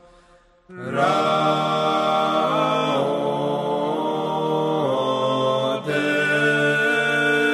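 Choir singing Orthodox chant: several voices holding sustained chords that shift every second or so. It comes in abruptly after a brief near-silent gap less than a second in.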